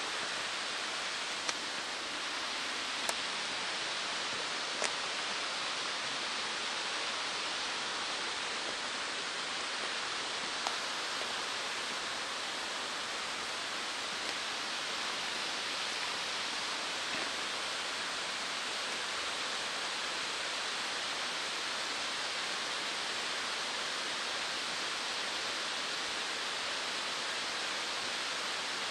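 Steady, even rushing hiss, with a few faint clicks in the first ten seconds or so.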